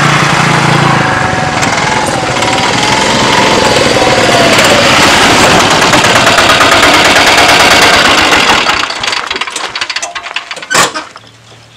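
Engines of an auto-rickshaw and a motorcycle running at close range, moving, a loud rapid rattling with a wavering whine over it for the first few seconds. The noise dies down near the end, and a single sharp knock comes just before it ends.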